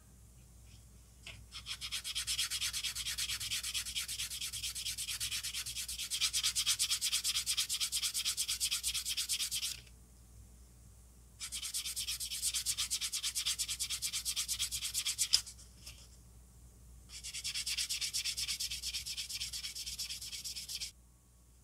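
Sanding sponge rubbed quickly back and forth over the painted plastic body shell of a model car, smoothing the paint. The rubbing comes in three spells of fast strokes, with short pauses between them.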